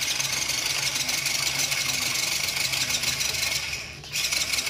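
Electric motor and gear drivetrain of a scale RC Land Rover D90 crawler whirring steadily as its wheels spin, cutting out briefly near the end and then starting again.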